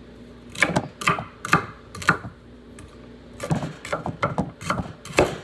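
Kitchen knife chopping green bell pepper on a wooden cutting board: a run of sharp knocks, a pause of about a second, then a second, quicker run of knocks.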